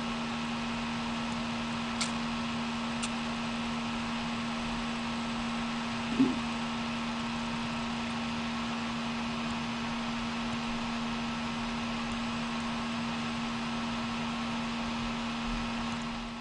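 Open telephone line with no one speaking: a steady hiss with a low steady hum, two faint clicks about two and three seconds in and a short blip about six seconds in.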